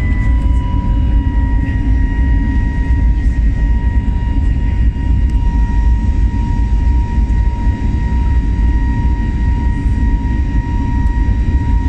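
Airliner cabin noise in the climb after takeoff: a steady deep drone of engines and rushing air, with a steady whine above it.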